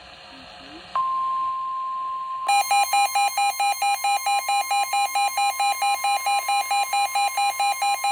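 NOAA Weather Radio's steady 1050 Hz warning alert tone starts about a second in, marking a new severe thunderstorm warning. About a second and a half later, a Midland WR120 weather radio's own electronic alarm sets off over it in rapid, evenly pulsed beeps.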